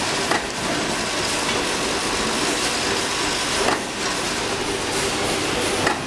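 A semi-automatic crimping machine running with steady machine noise, with three sharp clacks as the press strokes crimp wire terminals into three-pin plug inserts.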